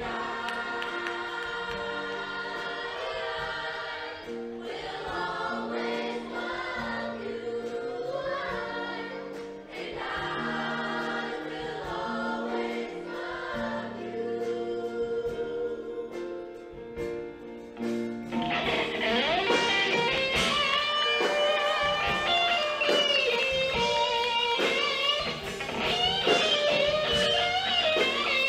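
Show choir singing held chords with instrumental accompaniment. About two-thirds of the way in, the music turns louder and fuller.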